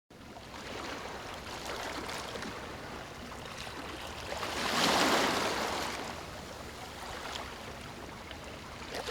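Water rushing with a steady hiss, swelling up and falling back once about halfway through.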